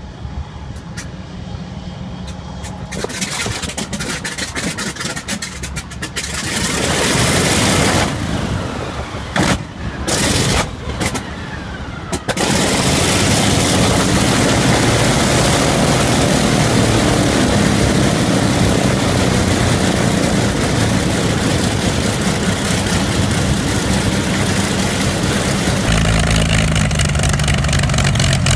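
FG-1D Corsair's Pratt & Whitney R-2800 18-cylinder radial engine cold-starting: it turns over, fires unevenly with pops and gaps, then about twelve seconds in catches and runs steadily. Near the end the sound cuts to a Yak-3M's engine running.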